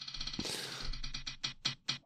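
A spinning selection wheel ticking, fast at first, then the ticks spacing out as it slows to a stop.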